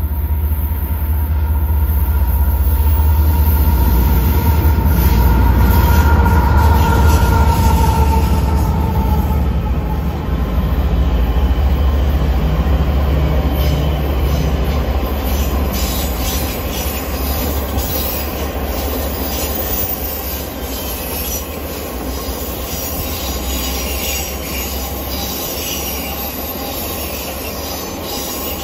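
A passenger train of stainless-steel cars rolling past at close range: a steady low rumble of wheels on rail, loudest in the first third. A thin high squeal fades out about nine seconds in, and scattered sharp clicks and squeaks follow.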